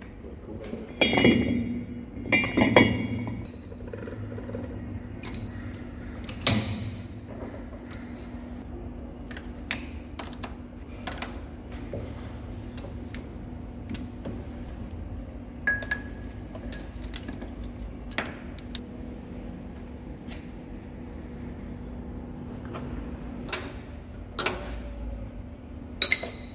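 Metal clanks and clinks of steel tools being handled while a lathe is set up: a chuck key turning in the lathe chuck and a boring bar being fitted in the tool post. Two loud ringing clanks come about a second and two and a half seconds in, followed by scattered sharper knocks, all over a steady low hum.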